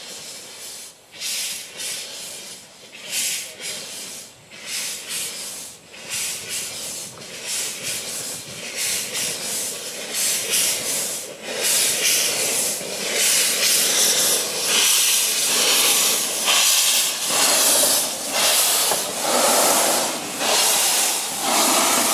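Narrow-gauge steam locomotive moving slowly with its cylinder drain cocks open, giving repeated hissing bursts of steam. The hissing grows louder and more continuous about halfway through as the engine draws close.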